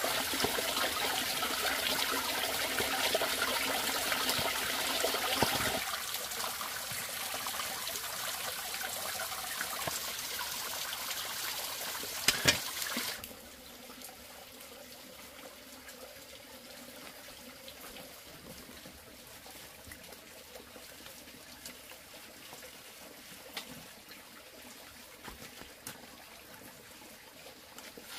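Water running and trickling, louder for the first six seconds, then a little softer. A sharp knock comes about twelve seconds in, and then the water falls much quieter, leaving only faint ticks.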